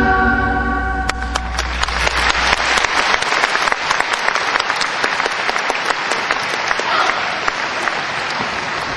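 Performance music ends about a second in and an audience breaks into applause, which slowly fades.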